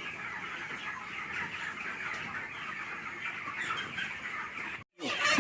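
A flock of chickens in a poultry shed, many birds calling at once in a steady, dense chatter of cheeps and clucks. The sound cuts out abruptly for a moment near the end.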